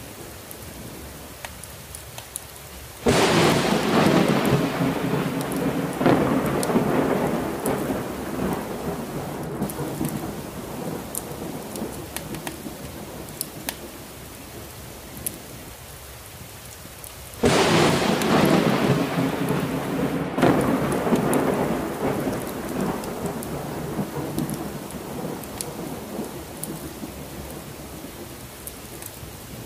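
Steady heavy rain with two thunderclaps, one about three seconds in and another about seventeen seconds in. Each starts suddenly, swells again a few seconds later and rumbles away slowly under the rain.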